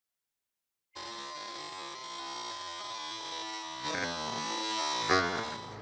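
Chainsaw running in a cutting jig. It starts abruptly about a second in with a steady whine, gets somewhat louder in the last couple of seconds and stops just after the end.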